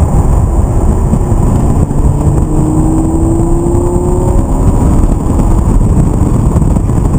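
Lamborghini Gallardo LP 560-4's V10 engine running hard on the track, heard from inside the cabin over heavy road noise, its pitch climbing slowly for a couple of seconds in the middle as it pulls through a gear.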